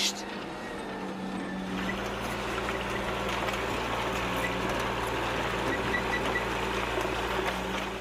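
Steady rumble of traffic and machinery with a constant low hum; a deeper rumble comes in about two seconds in.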